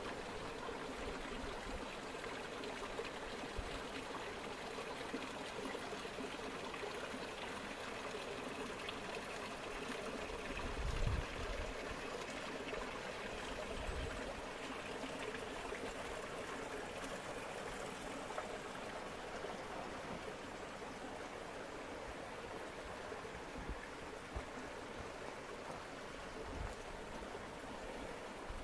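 Small mountain stream trickling and splashing among boulders into a pool, a steady rush of water. A few low thumps break through, the loudest about eleven seconds in.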